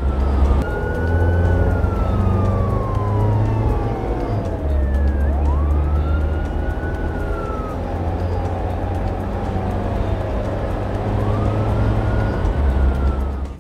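Police car siren in a slow wail: the pitch rises quickly and falls slowly, about three times, over a low steady rumble.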